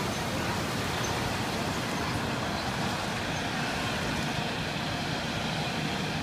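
Fire truck engine running close by, a steady rumbling noise with no breaks.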